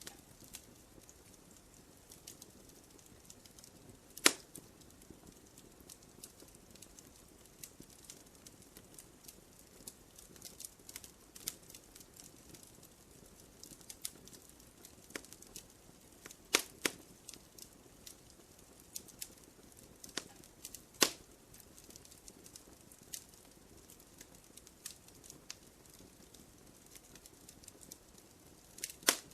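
Wood fire crackling in a fireplace: a low hiss with scattered small pops and clicks, and a few sharp snaps about four seconds in, around the middle, and near the end.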